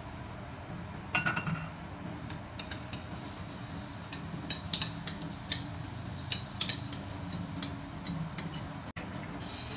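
Kitchen utensils and dishes clinking and tapping in a scatter of light, sharp knocks, the loudest a ringing clink about a second in, over a steady low hum.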